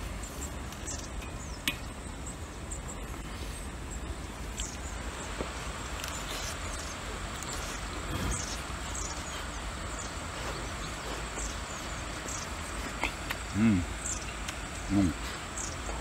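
Crickets trilling steadily in the grass, with scattered short high chirps. A man gives two short murmurs with his mouth closed near the end while chewing.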